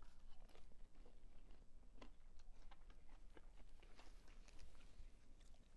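Faint chewing close to the microphone: irregular small wet clicks and smacks of the mouth working on food.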